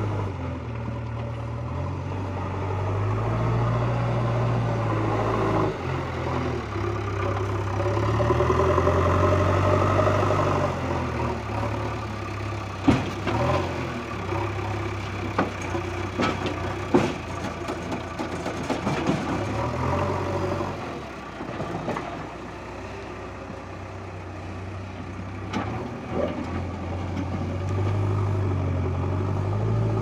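JCB 3DX backhoe loader's diesel engine running steadily, revving up under load as the front bucket is raised about a third of the way in. Around the middle, a run of sharp knocks and clanks, the loudest at about 13 and 17 seconds, as the bucket load of gravel and soil is dumped into the steel body of a tipper truck.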